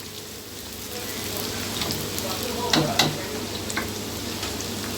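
Sliced onions sizzling as they fry in hot cooking oil in a kadhai, with two sharp clicks close together about three seconds in as the pan is stirred.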